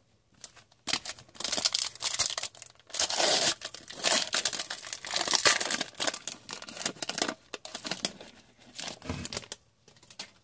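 Foil wrapper of a trading-card pack being torn open and crinkled, a dense crackling run with sharp tearing strokes.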